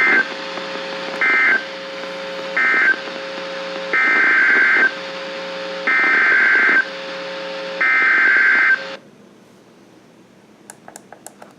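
NOAA Weather Radio SAME digital data bursts: three short warbling bursts (the end-of-message code), then three longer ones (the header of the next alert), over radio hiss with a low hum. The hiss cuts off about nine seconds in, and a few faint clicks follow near the end.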